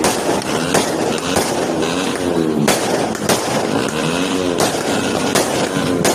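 A 49-shot fireworks cake firing, about seven sharp bangs spaced under a second to over a second apart over a steady loud noise, with wavering pitched sounds between the shots.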